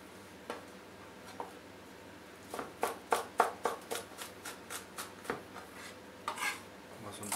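Kitchen knife chopping garlic cloves on a cutting board: a few faint ticks at first, then quick knife taps from about two and a half seconds in, around three or four a second.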